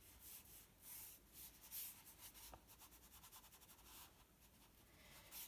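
Faint, short strokes of a brush-pen tip rubbing across paper, repeated every half second or so as the background is filled in with colour.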